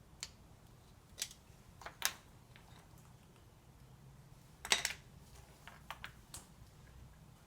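Scattered short clicks and light knocks of small carburetor parts and tools being handled. The loudest is about five seconds in.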